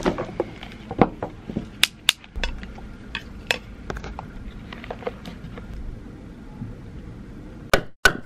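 Scattered sharp clicks, taps and clinks of small objects being picked up and set down by hand, with two louder knocks just before the end.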